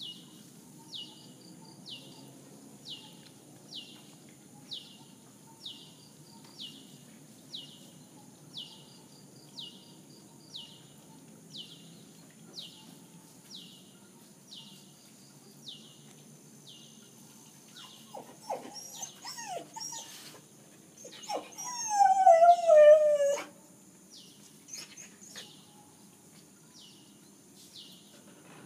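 A 9-month-old Samoyed whimpering in a few short falling cries, then one loud, long howl falling in pitch, lasting about two seconds, near the end. A faint high chirp repeats about once a second underneath.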